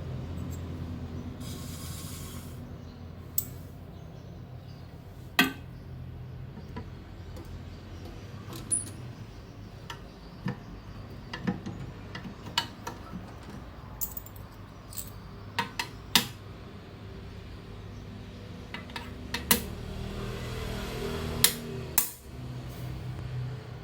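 Scattered sharp metal clicks and clinks at irregular intervals over a low steady hum, like small metal parts being handled and set down.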